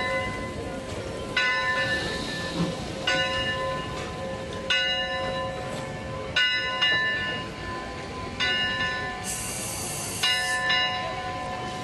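Steam locomotive bell ringing at a slow, even pace, one ringing stroke about every second and a half to two seconds. About nine seconds in comes a short burst of steam hiss.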